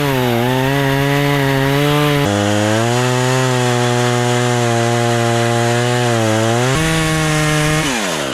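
Two-stroke chainsaw running at high throttle while cutting wood. Its engine pitch drops lower under load for several seconds in the middle, rises again, then falls away as the throttle is released near the end.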